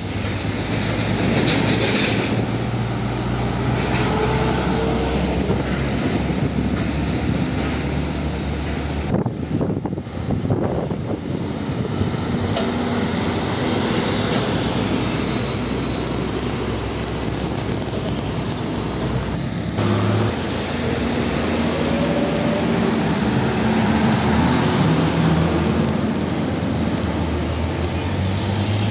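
Diesel engines of UD Nissan Diesel container trucks running as they pass along the road, with other traffic around them. The sound changes abruptly twice, about a third and two-thirds of the way through, as one truck's pass gives way to the next.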